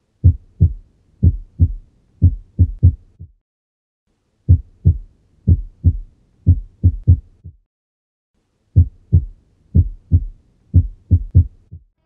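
Heart sounds, lub-dub beats, in the rhythm of a supraventricular extrasystole: an early first heart sound followed by a compensatory pause, then the normal rhythm resumes. The run of beats is heard three times, with about a second of silence between runs.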